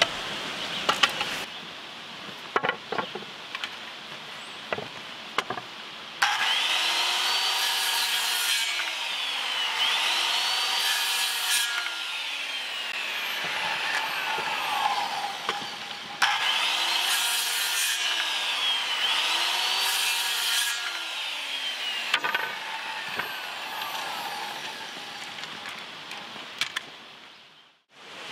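Corded circular saw cutting wooden boards in two long cuts: one starts about six seconds in and the other just past the middle, each lasting about seven seconds, with the motor's pitch rising and falling as the blade works through the wood. Light knocks and clicks of the boards being handled come before the first cut.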